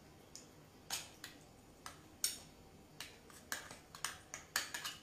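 Utensils clicking and tapping against a serving plate while food is arranged on it: a string of short, sharp clicks, the loudest about two seconds in, coming closer together near the end.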